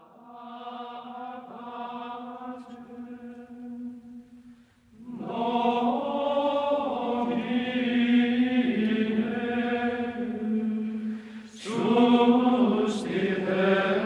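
Soundtrack music of chanting voices over a steady low drone. It is soft at first, grows fuller and louder from about five seconds in, and breaks off briefly near the end before going on.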